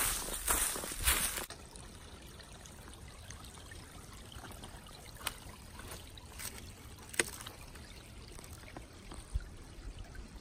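Footsteps crunching through dry leaf litter, about two a second, stopping about a second and a half in. Then a small stream trickles quietly, broken by a couple of sharp clicks.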